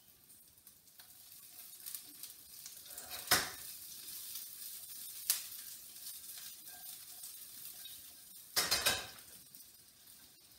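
Sliced green peppers sizzling in oil in a frying pan as they are stirred, with sharp clatters of the utensil and pan a few times, the loudest short run near the end.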